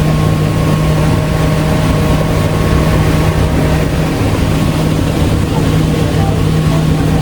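Tour boat's engine running steadily while cruising, a constant low hum with a steady rush of noise over it.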